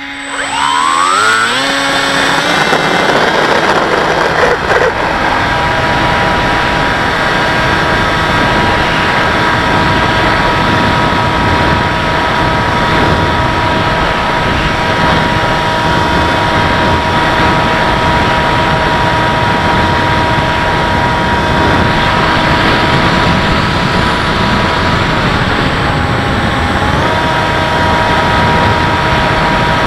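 Electric brushless motor and propeller of a Bixler RC plane, heard from the plane's own camera. The whine rises as the throttle opens in the first couple of seconds, then holds a steady pitch over a constant rushing noise. About 25 seconds in the pitch dips briefly as the throttle eases, then comes back up.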